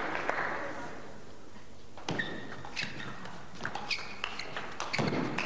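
Table tennis rally: the ball clicks against the table and bats in a quick, irregular series starting about two seconds in, after the crowd's applause dies away. A few short high squeaks are mixed in.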